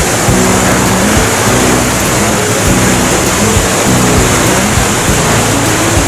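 Steady rush of the Kegon Falls waterfall, with background music of held low notes layered over it.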